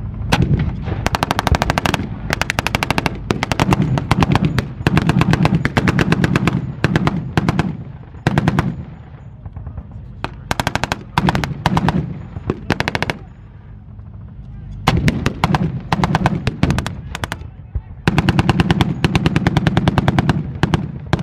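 Heavy machine gun on a Sherman tank's turret firing blanks in long bursts of rapid shots, about eight to ten a second, with short pauses between bursts.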